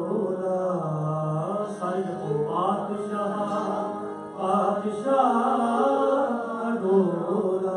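Sikh kirtan music: harmonium, a bowed string instrument and tabla playing a shabad melody, with long held and gliding notes.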